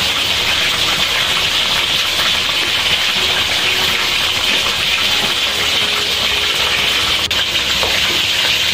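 Chickpea and vegetable curry boiling in a stainless steel wok, a steady hiss of bubbling liquid.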